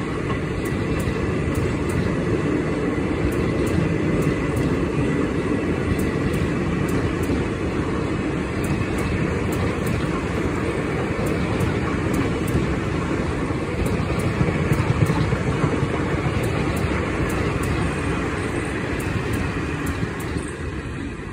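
Coaches of the Delhi Sarai Rohilla–Porbandar Express passenger train running past close by: a steady loud rumble and rattle of wheels on rail. It fades near the end as the tail of the train goes past.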